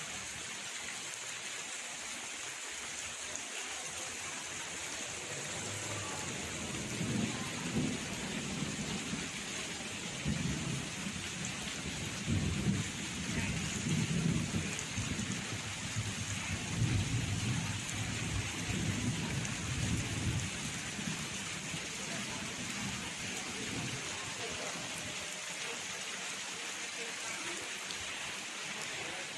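Steady hiss of rain falling on a garden koi pond whose fountain is splashing. A low rumble swells and fades in the middle for about fourteen seconds.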